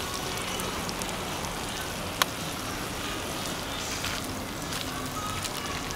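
Meat and butter sizzling on a hot barbecue grill plate, a steady hiss, with one sharp click about two seconds in.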